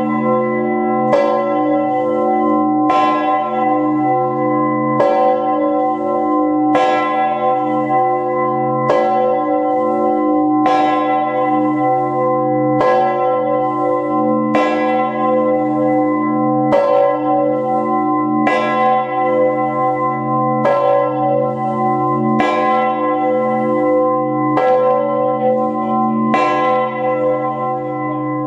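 Great Peter, Gloucester Cathedral's three-tonne medieval bourdon bell, ringing alone. It is struck about every two seconds, and its deep hum carries on under each new stroke.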